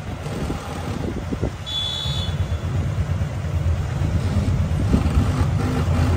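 Motorcycle engine running close by in street traffic: a low, steady rumble that grows louder after the first second or so. A brief high-pitched tone sounds about two seconds in.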